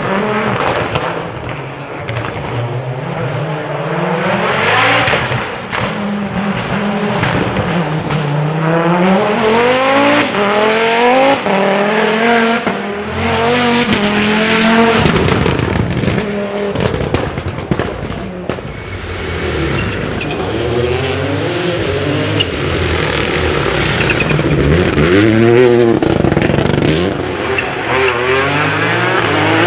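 WRC rally cars driven flat out, their engines revving hard, the pitch repeatedly climbing and then dropping with gear changes and lifts off the throttle.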